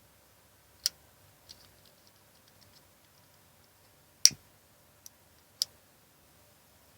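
A handheld lighter clicking. A sharp click comes first, then a short run of faint ticks. The loudest event is a snap with a dull thud, followed by two more clicks.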